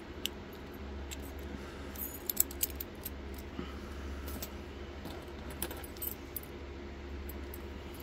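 Scattered sharp metallic clicks and clinks of a padlock and steel lock picks being handled between picks, with a cluster about two seconds in and a few more around the sixth second, over a low steady hum.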